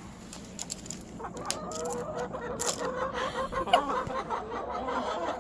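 Chickens clucking steadily, with a few sharp clicks mixed in.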